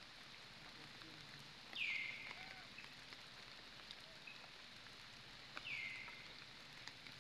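Two short, high animal calls about four seconds apart, each sliding down in pitch and levelling off, heard over a faint steady hiss like light rain or dripping.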